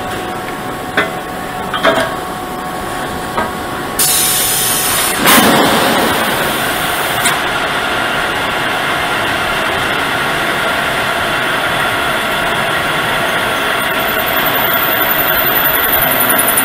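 Multi-spindle pipe drilling machine running with a steady mechanical hum and a few clicks. About four seconds in a burst of hissing starts, and the machine runs louder from then on.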